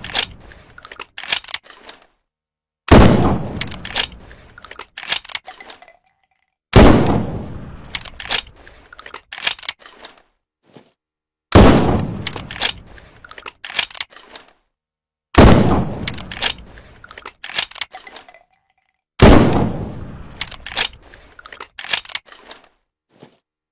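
Handmade single-shotgun sound effect: five loud single blasts about four seconds apart, each fading out and followed by a few short sharp clicks.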